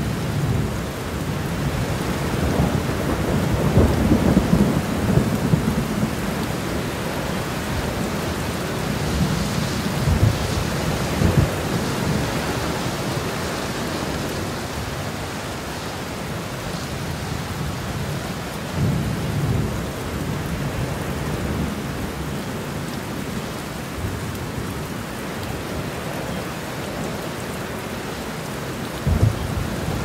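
Thunderstorm: steady rain with several low rolls of thunder, the strongest a few seconds in and others spread through, with two more near the end.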